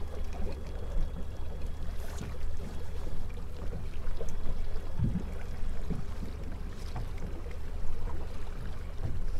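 Boat motor running steadily at trolling speed, a low drone under wind and water noise, with a few light knocks.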